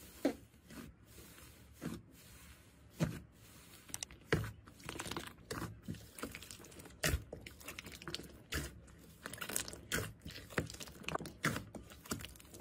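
Hands squeezing, stretching and folding slime in a glass bowl, making irregular sticky pops and crackles.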